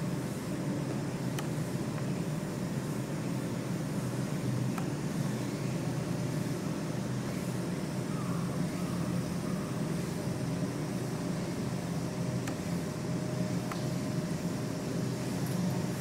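Steady low background rumble, with a few faint ticks scattered through it.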